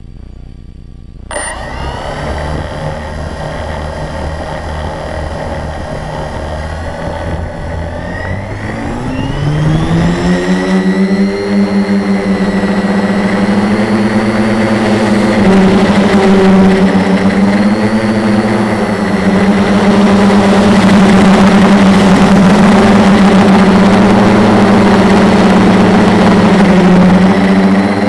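A 450 quadcopter's four Multistar 2212 920kv brushless motors spinning 10x4.5 props, heard from the onboard camera. They start about a second in at a low idle, rise sharply in pitch about eight to ten seconds in as the quad lifts off, then hold a loud, steady buzz with slight pitch shifts in flight, under a hiss that grows.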